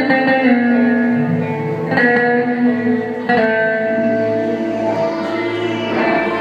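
Amplified plucked string instrument playing during a sound check, notes struck about two seconds in and again a second later, each left to ring.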